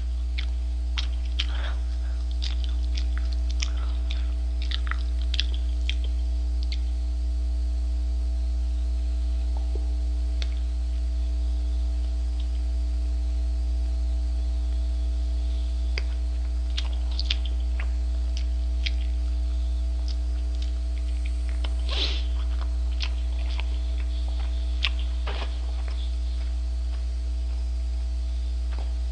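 Chewing and biting into a McDonald's Double Quarter Pounder with Cheese, heard as scattered mouth clicks in short clusters, loudest about three quarters of the way through. A steady low electrical hum runs underneath.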